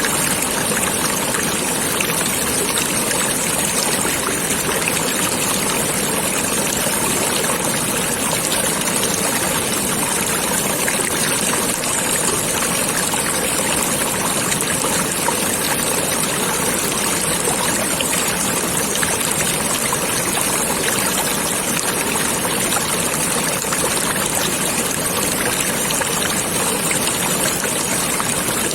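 Water flowing in a stream, steady and unbroken.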